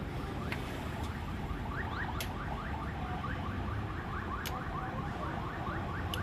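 Electronic car alarm sounding in the background: a fast, even run of short rising chirps, about five a second.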